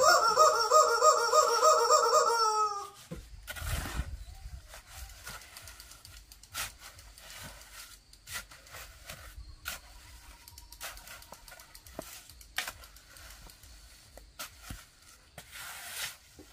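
A chicken squawking loudly with a warbling call for about the first three seconds. Then a shovel scraping and slapping through wet cement mortar, a stroke every second or two.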